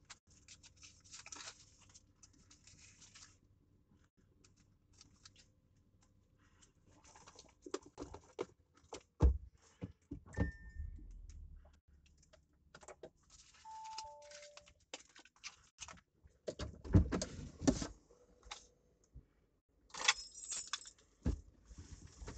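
Someone rummaging inside a car's cabin: scattered clicks, clinks and rustling, with a couple of heavier thumps. About ten seconds in there is one short high beep, and a few seconds later a falling two-note electronic tone.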